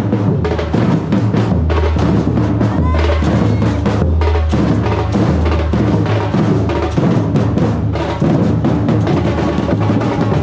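A parade drum group playing live: large bass drums and snare drums beating a steady, continuous rhythm.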